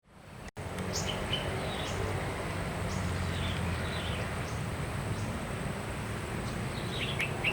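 Town outdoor ambience: a steady low rumble with many short bird chirps and calls scattered over it, the loudest a quick burst of chirps near the end. The sound fades in at the start.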